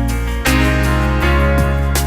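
Background music with guitar, a new chord coming in about half a second in.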